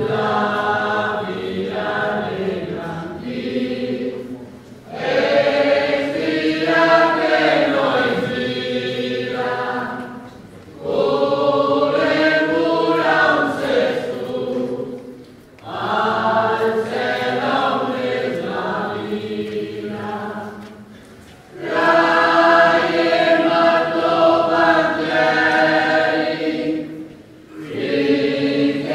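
A choir sings a hymn in phrases of about five seconds, each separated by a brief pause for breath.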